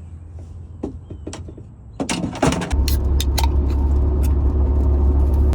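Clicks and knocks of keys and a car door, then the car's engine starts a little over two and a half seconds in and runs with a loud, steady low hum.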